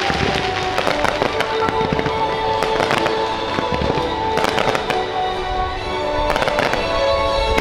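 Fireworks bursting in quick succession, sharp bangs and crackles over the show's orchestral soundtrack playing loudly.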